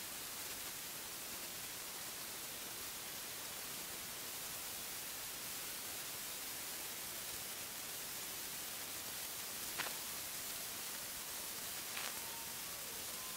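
Steady hiss, with two brief clicks a couple of seconds apart near the end and a few faint short tones after them.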